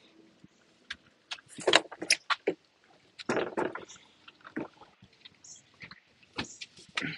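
Irregular knocks, scuffs and rustles as a plastic kayak is carried by hand and a person walks in sandals, first on concrete and then onto a wooden dock. The loudest scuffs come about two and three and a half seconds in.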